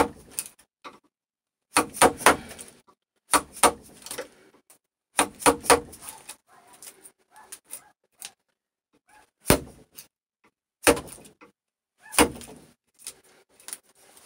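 Dead blow hammer striking a bench chisel as it chops waste out of a joint in a birch post: sharp knocks, singly and in quick runs of two or three, with short pauses between.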